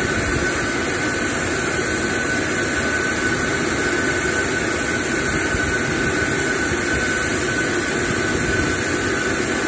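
Steady jet-turbine noise, an even rumble with two constant high-pitched whines on top.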